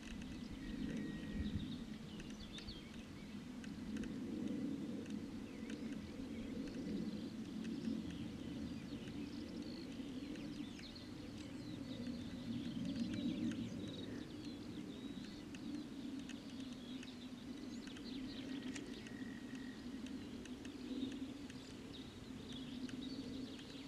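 Faint outdoor ambience: a steady low buzz of flying insects, with scattered high bird chirps over it.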